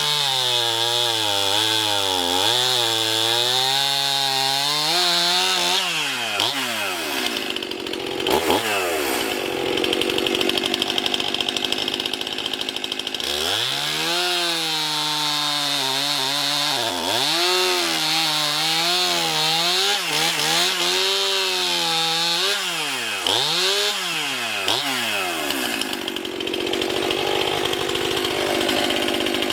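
A Stihl MS 271 two-stroke chainsaw (50.5 cc) cutting through a log at full throttle, pulling an 18-inch bar with full-comp chain. The engine pitch rises and falls over and over as it loads up in the cut and frees up again, with a sharp loud crack about eight seconds in.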